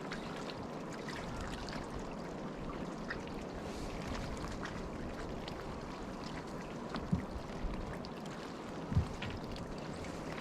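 Steady trickling, washing water noise, with a few dull low knocks in the second half.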